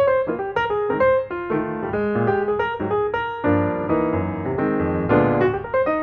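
Background piano music: a melody of single notes over chords, growing fuller about halfway through.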